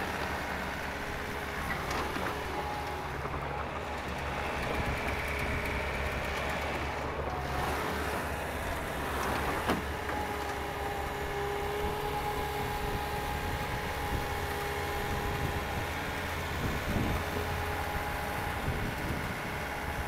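Diesel engine of a 2018 Bobcat T590 rubber-tracked skid steer running as the machine drives, turns and lifts its bucket. The engine hum is steady, with a thin steady whine over it and a few short knocks.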